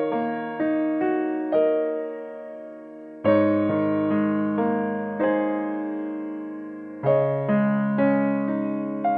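Background piano music: gentle notes and chords struck one after another, each ringing and fading, with a fuller chord about three seconds in and another about seven seconds in.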